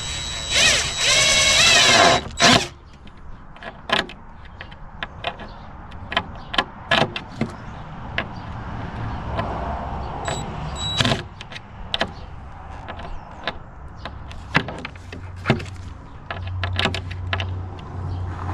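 Power drill driving a screw into a wooden board, its motor rising in a whine for about two seconds as the screw pulls the board in. Scattered clicks and knocks of wood and tools follow, with a low motor hum near the end.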